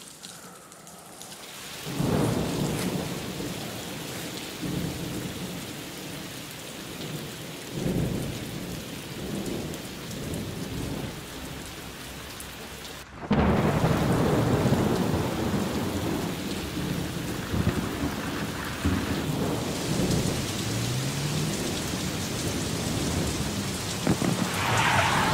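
Heavy rain pouring down with rumbles of thunder, starting suddenly about two seconds in. About halfway through it cuts to a louder, steady downpour.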